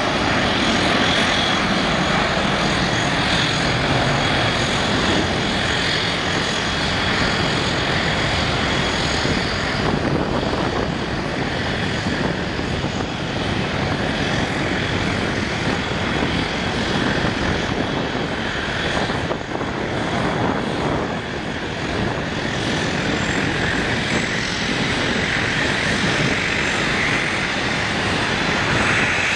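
Airbus A330-200's two turbofan engines at takeoff thrust as the airliner lifts off and climbs away: a loud, steady jet rush with a thin high whine running through it.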